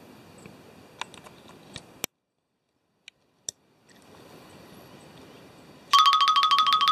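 A loud electronic tone pulsing rapidly, about ten beeps a second like a phone ringtone, starts abruptly about a second before the end. Before it, only faint outdoor background with a few small clicks and a brief cut to silence.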